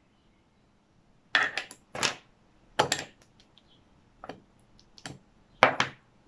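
Small make-up containers and tools being handled and set down on a tabletop: a scattered series of short, sharp clacks and clicks, some in quick clusters, the loudest about a second and a half in and near the end.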